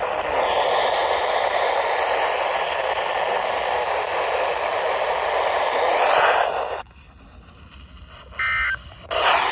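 Weather radio receiver hissing with static, which cuts off about seven seconds in; a short electronic beep comes about a second and a half later, and the static returns just before the end.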